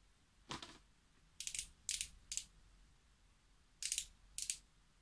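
Ellis Faas Glazed Lips gloss pen being twisted: short bursts of ratcheting clicks from its twist mechanism, three in quick succession and then two more, as the gloss is wound up towards the brush applicator. A brief handling noise comes just after the start.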